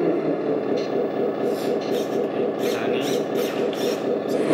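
Simulated diesel truck engine running, played from the RC tractor truck's onboard sound module speaker just after it is started. It is steady and rough, with a few short, higher hissy noises about halfway through.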